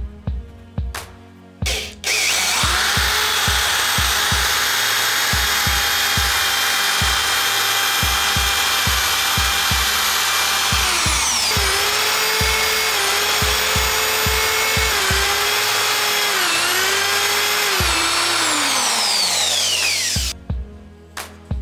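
Electric drill boring into a wooden block: it starts about two seconds in and runs with a steady whine that dips in pitch a few times, then winds down with a falling whine near the end.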